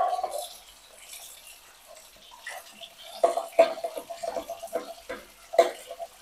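Tap water running into a sink while a pot and a ladle are scrubbed with a sponge and rinsed. The first half is quiet; from about three seconds in come quick bursts of splashing and scrubbing.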